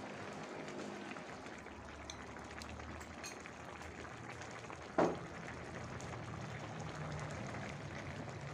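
Cap cay broth simmering in a wok over a gas burner, a steady bubbling hiss, as it is thickened with cornstarch slurry. A single sharp knock about halfway through.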